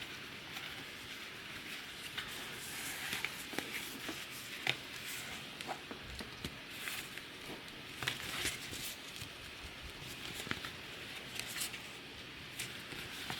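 Irregular handling noises: rustling with scattered light clicks and taps over a steady hiss.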